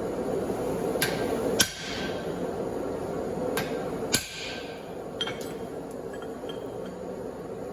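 Propane forge burner running steadily, with sharp ringing metal-on-metal strikes over it: two about a second in, two more around four seconds, and a lighter one near the middle.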